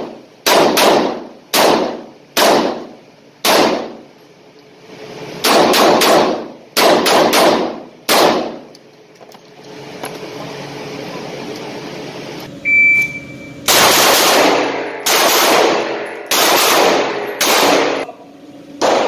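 Pistol shots fired in uneven strings, some in quick pairs, more than a dozen in all. A short high beep comes about two-thirds of the way through.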